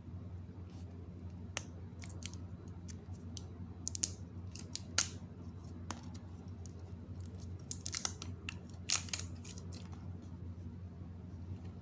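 Product packaging being handled and cut open: scattered sharp snips, clicks and short crisp rustles, the loudest clusters about four to five seconds in and again near nine seconds, over a steady low hum.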